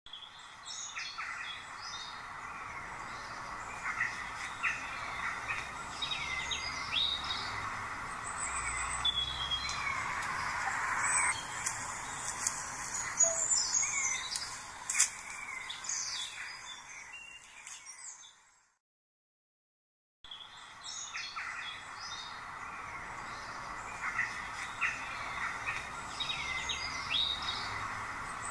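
Many birds chirping and singing together, a recorded birdsong ambience. It cuts out for about a second and a half some two-thirds of the way through, then the same stretch of birdsong starts again.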